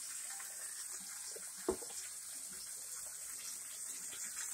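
Steak searing in a hot cast iron skillet, with onions frying alongside: a steady frying sizzle with scattered small crackles. One sharper pop stands out a little under two seconds in.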